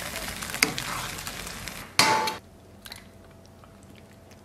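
Tofu in a thickened chili sauce sizzling and simmering in a wok as a metal ladle stirs and scoops it, the sizzle fading. About two seconds in, the ladle strikes metal with one sharp clang that rings briefly. After that come only faint clinks as the tofu is ladled onto a stainless steel plate.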